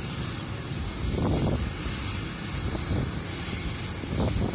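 Rescue helicopter's turbine running on the ground, a steady rushing noise. Twice, about a second in and near the end, brief low buffets of wind hit the microphone.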